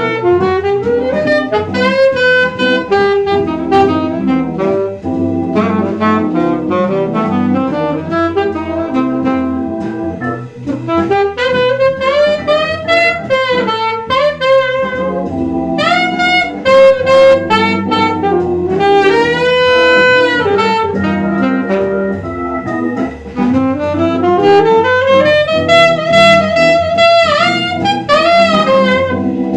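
Selmer saxophone playing a jazz melody over a backing track, with slides up into notes and a long held note about twenty seconds in.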